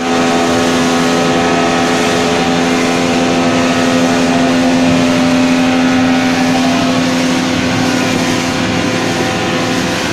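Motorboat engine running steadily, a loud even hum that holds one pitch throughout, with a rushing noise of wind and water under it.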